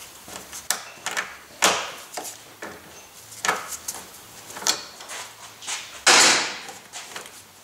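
Hands working the radiator overflow hose at the plastic filler neck: a run of short clicks and knocks, with one louder scrape lasting about half a second about six seconds in.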